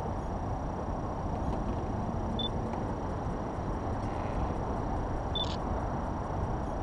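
Steady low outdoor background noise with no bangs, broken by two short high beeps about three seconds apart.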